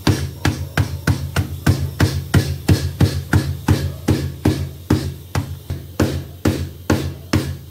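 Stone pestle pounding stone-hard dried Maldive fish (masi karuvadu) on newspaper to break it up: steady, even thuds about three a second.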